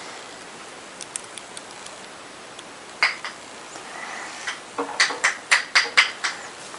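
Lego minifigure pieces clicking as they are handled and set down on a table: a few faint plastic clicks, then a quick run of sharper clicks near the end.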